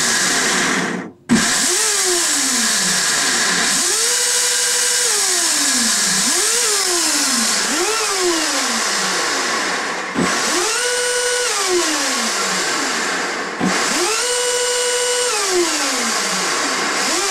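Twin 56 mm brushless electric motors spinning the jet drives, run up in repeated throttle blips. A whine rises quickly, sometimes holds, then falls away as the throttle is eased, about half a dozen times over a steady loud hiss.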